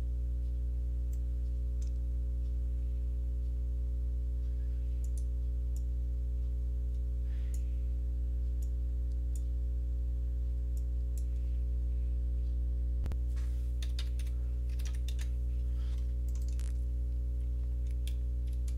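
Steady low electrical hum in the recording, with scattered light computer keyboard and mouse clicks, most of them in a quick run about two-thirds of the way through.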